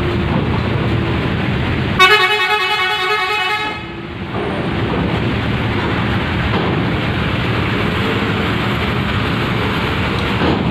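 A bus horn sounds once for about a second and a half, about two seconds in, over the steady rumble of a coach engine as the bus drives off the ferry.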